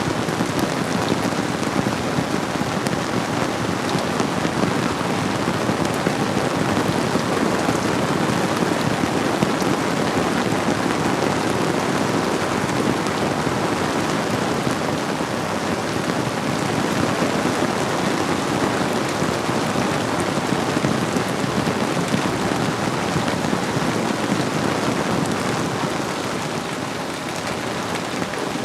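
Steady rainfall blended with a flowing river, an even, unbroken hiss.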